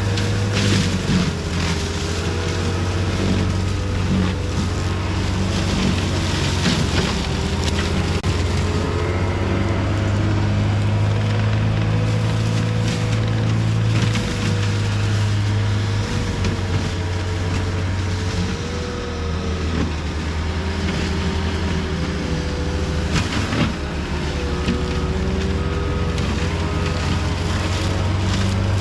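CAT 259D3 skid steer's diesel engine running steadily under load while driving a Gyrotrac forestry mulcher head, with a wavering whine over the engine note and a few sharp cracks.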